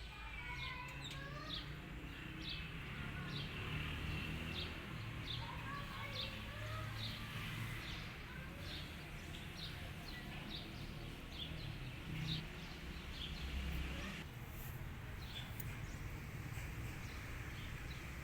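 Small birds chirping, short high chirps repeating about once or twice a second, with a few gliding calls mixed in, over a steady low rumble.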